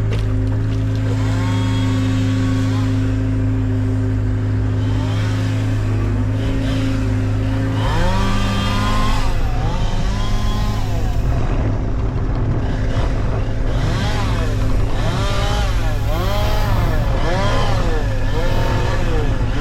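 An engine runs steadily throughout. From about eight seconds in, engine revving rises and falls over and over, more often toward the end.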